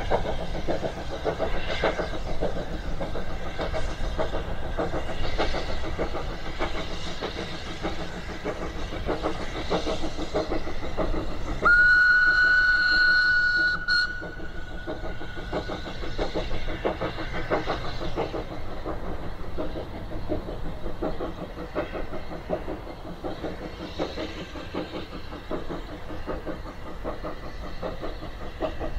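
GWR 57xx-class pannier tank steam locomotive No. 7714 working hard, its chimney exhaust beating in a rapid steady rhythm. About twelve seconds in comes one loud whistle blast of about two seconds, which trails off faintly for a few seconds more.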